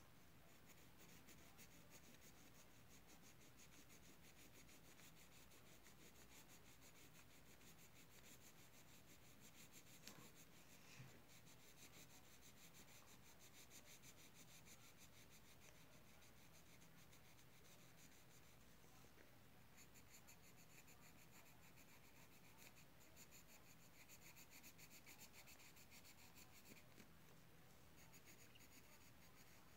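Faint, continuous scratching of drawing strokes on paper, with a couple of light taps about ten seconds in, over a low steady hum.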